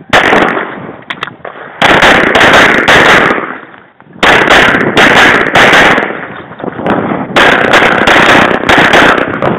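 Glock 24 .40 S&W pistol fired rapidly: one shot at the start, then three quick strings of shots with short breaks between them, each shot ringing out.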